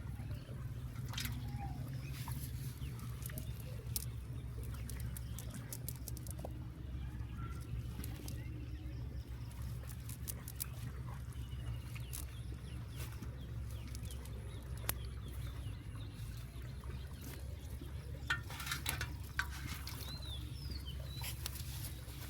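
Outdoor ambience: a steady low rumble with scattered clicks and light patter, and a couple of short bird chirps near the end.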